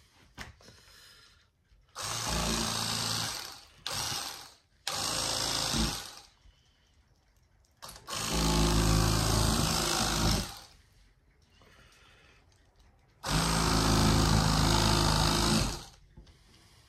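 Cordless 12-volt lithium electric fillet knife running in short bursts as it cuts a fish fillet. There are five runs, from under a second to about two and a half seconds long, each a steady motor hum with the buzz of the reciprocating blades.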